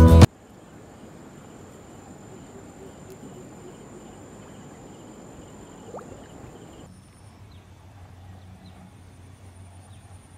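Intro music cuts off right at the start, leaving faint outdoor ambience with insects trilling steadily at a high pitch. A short rising chirp comes about six seconds in, and the background changes abruptly about seven seconds in.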